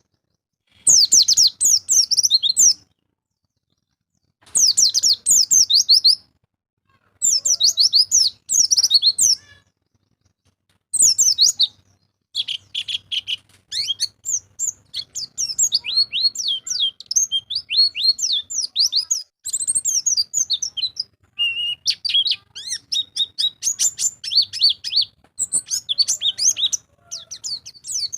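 White-eye (pleci) song: rapid, high-pitched twittering runs of quick down-slurred notes. It comes in bursts of about two seconds with silences between them, then runs almost without a break through the second half.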